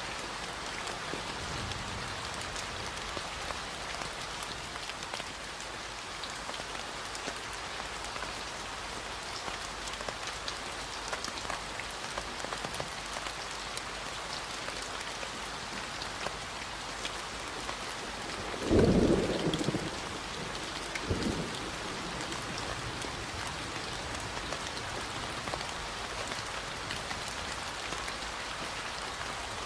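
Steady rain falling, an even hiss with fine drips and patters through it. About two-thirds of the way through comes a short low rumble, the loudest sound, with a smaller one about two seconds later.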